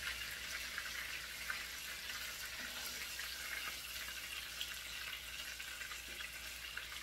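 Chicken thighs frying in a pan: a steady sizzle with fine crackling.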